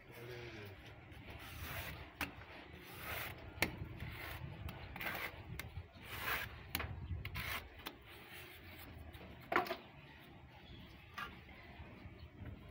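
A metal paint scraper scraping and scooping paint against the sides of a plastic bucket, in irregular strokes with a few sharp knocks.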